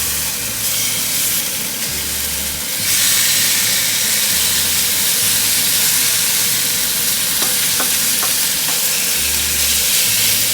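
Pork belly frying in a little olive oil in a hot pan, a steady sizzle that grows louder about three seconds in, with a few light clicks later on.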